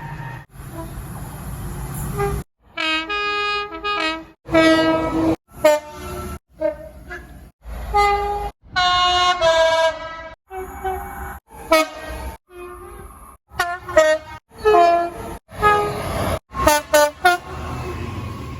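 A quick run of train horn blasts edited back to back, about fifteen short clips with abrupt cuts between them. Each is a chord of several steady tones lasting half a second to a second and a half. The first couple of seconds carry a low rumble under the horn.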